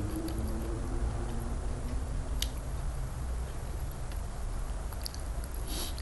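Close-miked chewing of raw salmon sashimi, with small wet mouth clicks over a steady low rumble. Just before the end there is a short wet squelch as fingers grip the slab of raw salmon.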